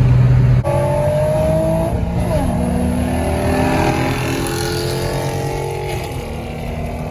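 Infiniti G35 sedan's VQ V6 engine, loud under hard acceleration: the engine note climbs in pitch, falls at a gear change about two seconds in, then climbs again before easing off near the end.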